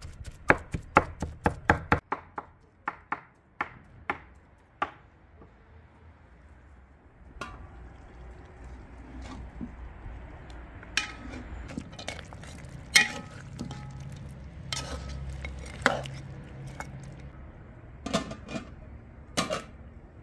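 Cleaver chopping minced meat and herbs on a wooden board, several quick chops a second, slowing and stopping. A few seconds later comes a steady hiss from a steaming pot over a wood fire, with occasional metallic clinks of the pot lid and ladle.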